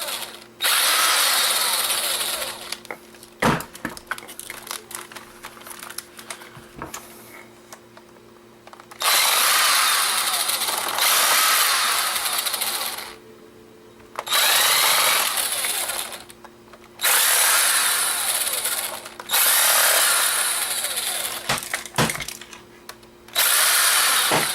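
Small electric screwdriver running in short bursts of one to a few seconds, about six times, backing out tiny screws from a camcorder's casing. Quieter handling and clicks come between the bursts.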